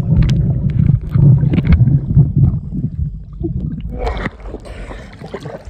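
Muffled sea water sloshing and rumbling over the camera's microphone while it is underwater. A brief splash comes about four seconds in.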